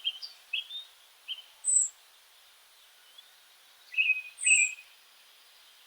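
A few short, scattered bird chirps, some sliding down in pitch, spaced by quiet gaps, over a faint steady hiss.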